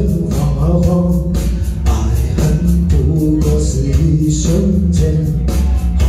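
A man singing through a handheld microphone over backing music with guitar and a steady beat.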